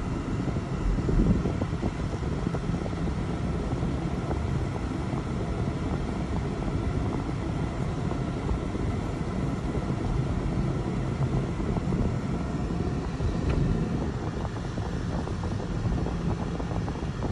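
Steady road and engine noise heard from inside a Cadillac's cabin while driving: a low, even rumble of tyres and engine.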